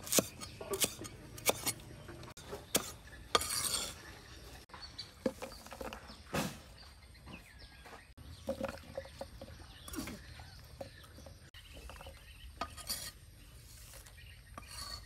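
Cleaver chopping lemongrass stalks on a round wooden chopping block: sharp separate knocks of the blade hitting the wood, about one every half second to second in the first few seconds. Later come scattered softer knocks and clinks as chopped ingredients are handled on a wooden board.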